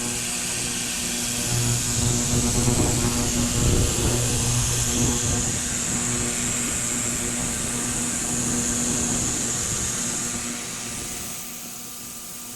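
Ultrasonic parts cleaner running, with a steady buzzing hum and a high hiss from its water bath as it cleans small steel needle bearings. It quietens about eleven seconds in.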